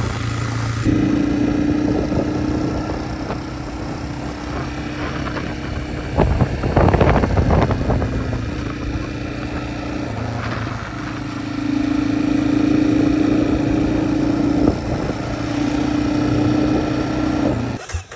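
Honda dirt bike engine running under riding load. Its note holds steady, then drops and rises in steps as the revs change, with a rough, noisy stretch about seven seconds in. The engine sound stops abruptly near the end.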